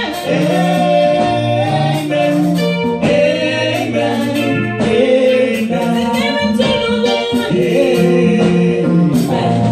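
Several women singing a gospel song together into microphones, their voices amplified through the church PA, with held low notes underneath.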